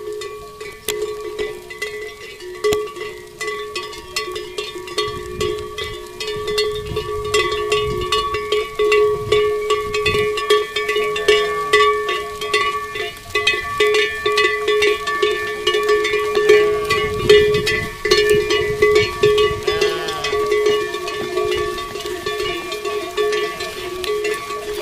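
Livestock bells on a moving flock of goats and sheep, clanking and ringing continuously, with a few bleats in the middle.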